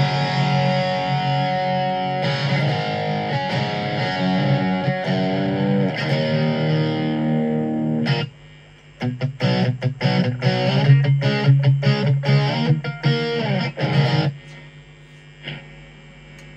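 Electric guitar played through a Blackstar ID:Core Stereo 10 V2 practice combo amp on its Super Crunch channel with the gain at noon, a stronger, louder overdriven tone. Ringing chords and notes for about eight seconds, a short break, then choppy, rhythmic strummed chords that stop about two seconds before the end.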